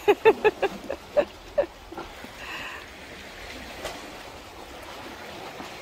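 A person's voice in a quick run of short syllables, fading out within the first second and a half. After it comes a steady, faint wash of calm sea water against the breakwater.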